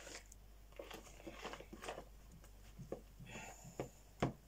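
Soft, irregular clicks and scrapes of a spoon stirring thick pancake batter in a bowl, with a sharper tap near the end.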